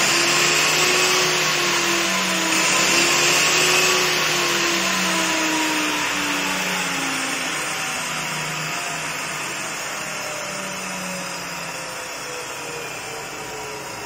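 Table saw motor and blade whirring at speed, then from about four seconds in slowly spinning down, the pitch and level falling steadily as the blade coasts.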